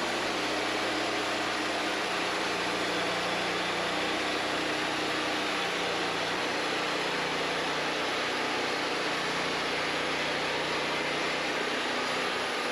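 Portable sawmill running steadily, its engine hum carrying under a wide, even noise.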